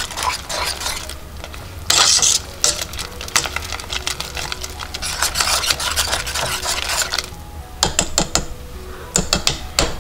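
Wire whisk beating thick cucumber relish in a stainless steel pot, its wires rapidly scraping and clattering against the metal. The whisking pauses briefly about seven seconds in, then goes on as a few separate taps.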